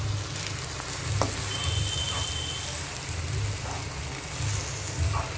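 Egg fried rice sizzling in hot oil in a frying pan while a spatula stirs and tosses it.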